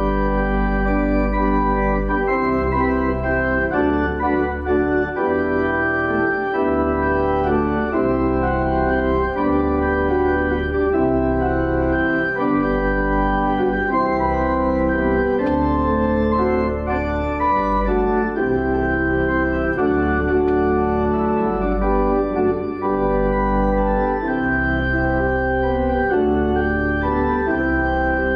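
Church organ playing a hymn: full sustained chords over a deep pedal bass that moves to a new note every second or two.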